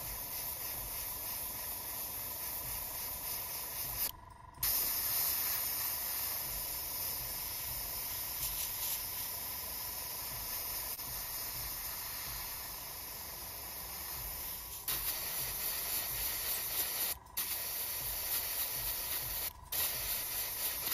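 Gravity-feed airbrush spraying paint: a steady hiss of air that cuts off briefly three times, about four seconds in and twice near the end.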